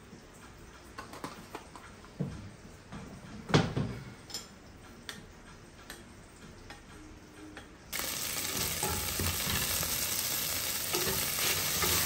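A few light knocks and clicks, then, about eight seconds in, beef stir fry suddenly starts sizzling in a pan as it is stirred, a steady frying hiss.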